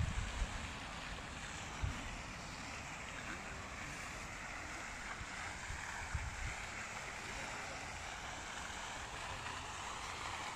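Steady outdoor wind noise, with a few low gusts buffeting the phone's microphone.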